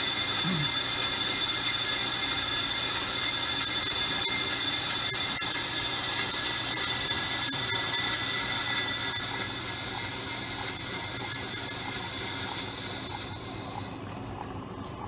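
Ammco 4100 brake lathe cutting a cast-iron brake rotor, its twin cutting bits shaving both faces: a steady high hiss with ringing tones over the lathe's hum. About 13 seconds in the cutting noise falls away as the cut finishes, and the lathe keeps running more quietly.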